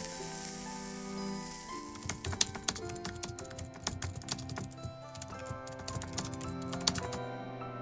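A typing sound effect: a quick run of keyboard clicks over background music with held notes. A hiss of TV static fades out in the first second or so before the clicks begin.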